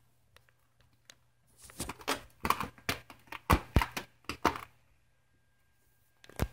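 A cat pawing and scratching at a closed door: a quick, irregular run of taps, scrapes and knocks lasting about three seconds, then one more knock near the end.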